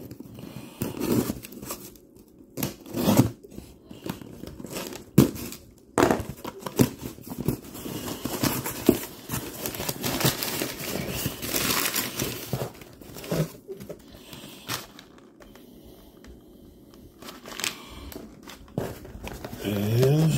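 A cardboard shipping box being opened by hand: flaps pulled and bent open and crumpled brown packing paper rustled and crinkled, in irregular sharp rips and rustles.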